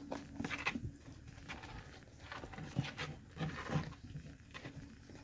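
Baby rabbits shuffling and scrabbling on a plastic tub, with a run of brief scratches and taps and a few short low sounds in the middle.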